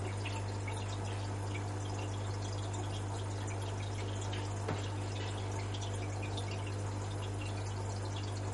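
Water dripping and trickling, with many small drops over a steady low hum. A single sharp click comes about four and a half seconds in.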